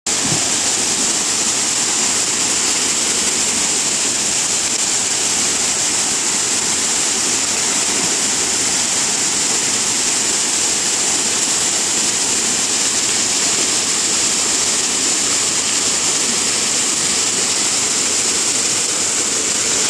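Water pouring over a concrete weir and falling into the pool below: a steady, even rush with no change in level.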